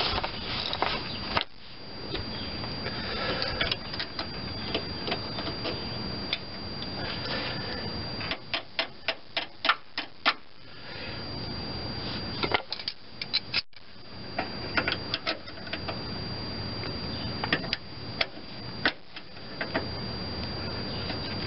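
Sharp metallic clicks and taps of a hand tool on a front brake hose's retaining clip and frame bracket as the clip is forced into place, coming in quick runs, densest about halfway through and again in the last few seconds.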